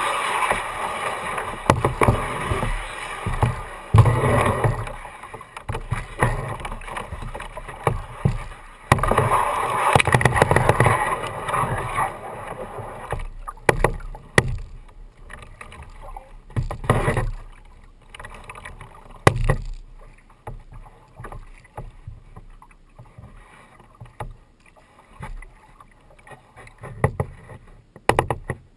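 Double-bladed kayak paddle dipping and splashing in calm water, close to the boat. The strokes come thick and busy for the first dozen seconds, then thin out to occasional splashes and sharp knocks as the kayak glides.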